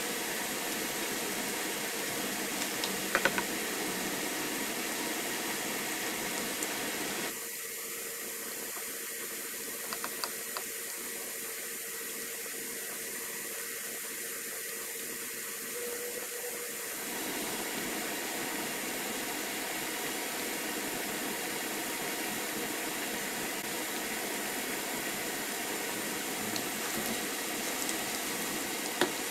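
Shredded green papaya deep-frying in hot oil: a steady sizzle, a little softer for about ten seconds in the middle, with a few sharp clicks.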